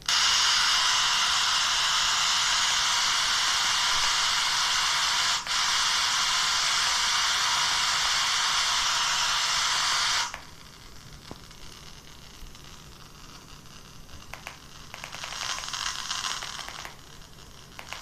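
FM radio static from a Dizo Star 300 feature phone's loudspeaker while it searches for stations: a loud, steady hiss that drops out for a moment near the middle and cuts off suddenly about ten seconds in. It is the sound of no station coming through, because reception is weak in a closed room. A faint hiss and a few small clicks follow.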